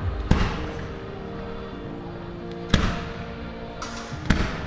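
Fireworks shells bursting overhead: three sharp bangs, near the start, about halfway and near the end, each trailing off in a short echo. Music plays steadily underneath.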